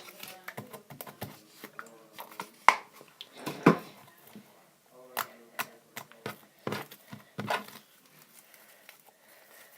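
Slime being worked by hand with Orbeez water beads mixed in: irregular sharp clicks and pops, the loudest ones in the middle few seconds.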